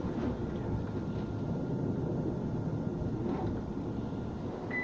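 Interior running noise of a Nottingham Express Transit tram under way: a steady low rumble of wheels on rail and running gear, with a faint steady whine above it.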